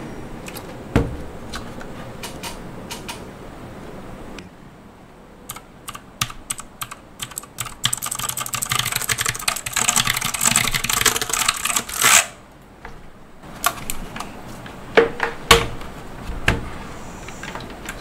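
Tecware Phantom mechanical keyboard with clicky blue switches being typed on, at first in scattered single key presses, then in a dense fast clatter of clicks for about four seconds close to the microphone. A few louder knocks and clicks follow near the end.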